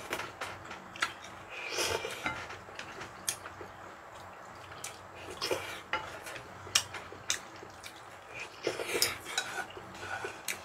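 Eating utensils clinking and scraping against bowls and dishes, in irregular sharp clinks with a few longer scrapes.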